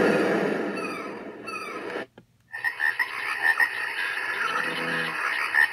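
Nature-sound tracks playing from a Timex T617S clock radio's speaker. First comes a steady rushing track with a few falling chirps. It cuts out for a moment about two seconds in as the next sound is selected, then a pulsing chorus of croaking frogs begins.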